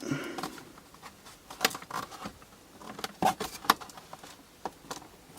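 Irregular clicks and light knocks of a washing machine door's plastic frame and glass bowl being handled and pushed together, as the bowl is worked into place.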